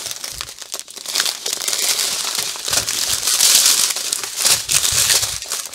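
Small plastic bags of diamond-painting drills crinkling and crackling as they are handled and shuffled, a busy run of crisp rustles without pause.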